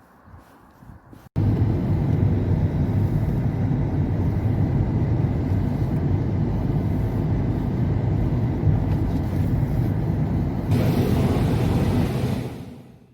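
A vehicle's steady, heavy low rumble that starts abruptly about a second in. A higher hiss joins it near the end, and the sound then fades out quickly.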